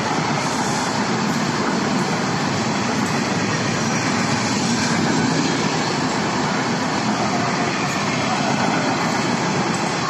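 Express passenger train coaches running past at speed: a steady rumble of wheels on rail with no horn.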